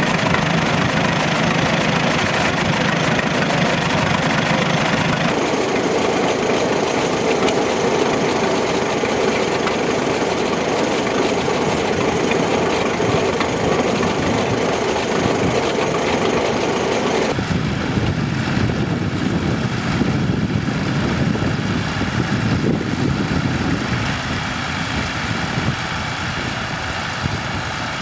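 Vintage tractor engines running steadily, with the engine sound changing abruptly about five seconds in, again past seventeen seconds, and once more near twenty-four seconds.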